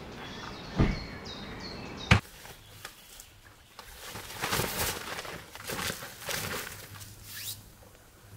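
Nylon walls of a pop-up privacy tent swishing and rustling in several strokes as they are pulled and straightened. Before that, two sharp knocks, the louder one about two seconds in.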